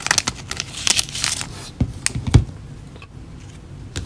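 Clear plastic card sleeves and a plastic team bag crinkling as trading cards are handled, with a few light clicks and a soft thump about two seconds in.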